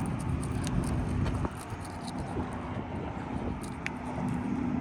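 Steady low rumble with a faint held hum, easing off about a second and a half in, with a few light clicks over it.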